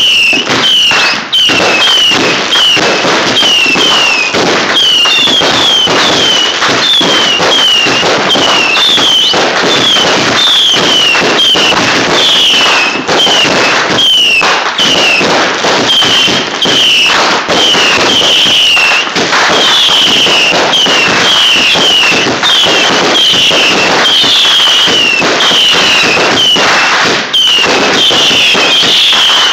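Consumer fireworks going off in a loud, continuous barrage: rapid cracks and bangs, overlaid with short whistles that drop in pitch about twice a second.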